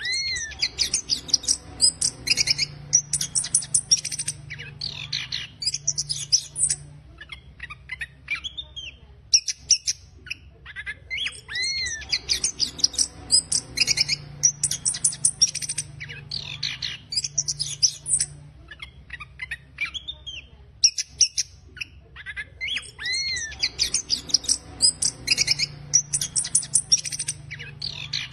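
Chestnut-capped thrush singing its rough, fast twittering song (ngeriwik kasar). The song comes in bouts of about six seconds, each opening with an arched whistled note and running into rapid chattering notes, and the bouts repeat about every eleven seconds. A steady low hum runs underneath.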